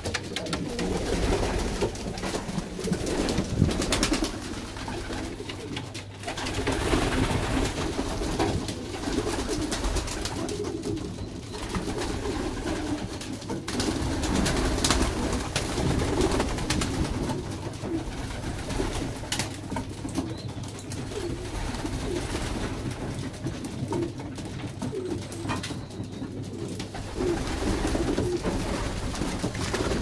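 Young racing pigeons cooing continuously inside a small loft, with occasional short sharp flutters of wings.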